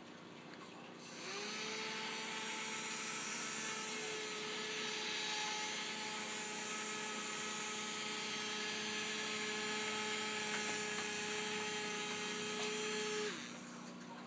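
Battery-powered bubble toy's small motor and fan whirring: it switches on about a second in with a quick rise in pitch, runs at a steady pitch with an airy hiss, and switches off about a second before the end.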